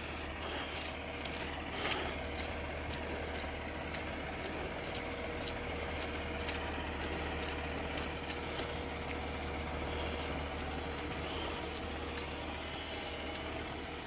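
Heavy diesel engine running steadily at idle, a constant low hum with a steady mid-pitched tone over it, and a few faint clicks scattered through.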